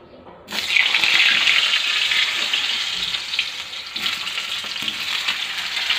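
Halved potatoes going into hot oil in a kadai: a loud sizzle starts suddenly about half a second in and keeps on steadily as the oil fries them.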